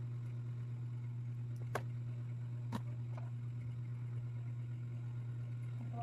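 A steady low hum, with two light clicks a second apart in the first half from a small tool and a phone being handled on a workbench.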